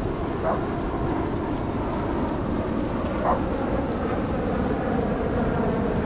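A dog barking twice, once about half a second in and again about three seconds in, over a steady background rush.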